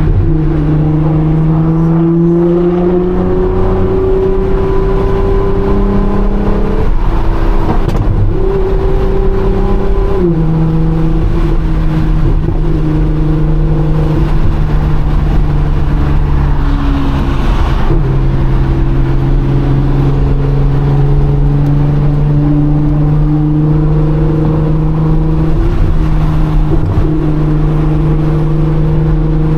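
Nissan R35 GT-R's full-bolt-on twin-turbo 3.8-litre V6 at highway cruise, heard from inside the cabin as a loud, steady engine and exhaust drone. Its pitch shifts several times as the throttle changes.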